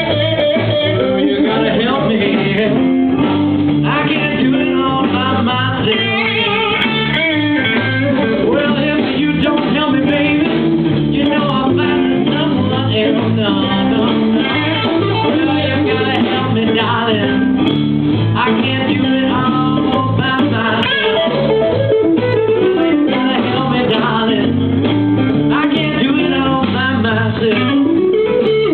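Live blues band playing a slow, soulful number, with guitar to the fore.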